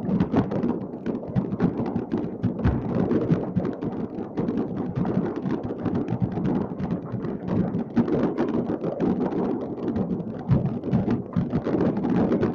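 Many fireworks going off at once, a dense, unbroken mass of pops, bangs and crackles with no pause between them.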